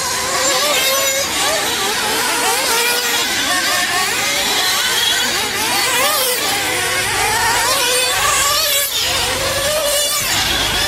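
Several nitro RC truggies' small two-stroke glow engines revving around a dirt track, their pitch rising and falling as they accelerate and slow. Cars sweep past closer by about six and nine seconds in.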